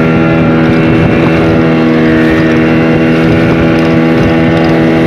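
Speedboat engine running at a steady speed, its drone holding one even pitch throughout.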